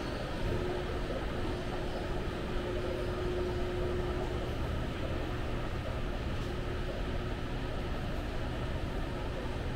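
Steady mechanical drone of building machinery, with a faint steady hum that drops out for a couple of seconds midway.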